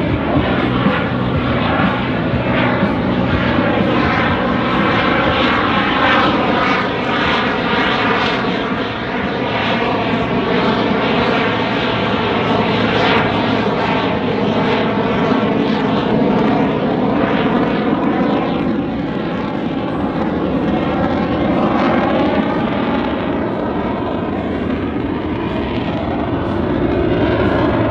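Loud, continuous jet noise from an RCAF CF-18 Hornet's two General Electric F404 turbofans during a display pass. It is a dense rush with a swirling, phasing tone that slides up and down as the jet moves across the sky.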